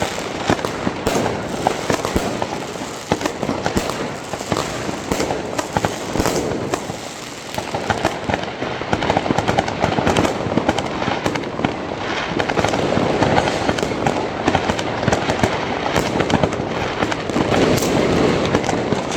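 Dense, continuous barrage of consumer fireworks and firecrackers: many bangs and crackles overlapping without a break.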